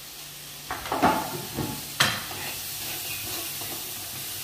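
Chopped cabbage tipped into a hot non-stick kadai of frying vegetables and stirred with a steel ladle: scraping and clatter, a sharp knock about two seconds in, then a steady sizzle.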